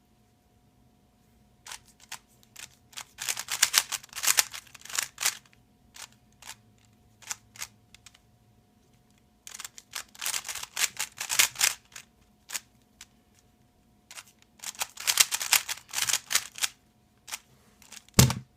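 Puzzle cube being turned quickly by hand, its layers clacking in three flurries of rapid clicks with short pauses between. A single low thump comes near the end.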